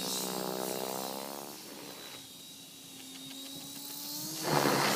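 Mini Protos RC helicopter running at low head speed, about 2000 rpm, with a buzzing hum whose pitch bends as it swells and fades, louder about a second in and again near the end, over a thin high whine. This is the odd noise the owner suspects is blade noise.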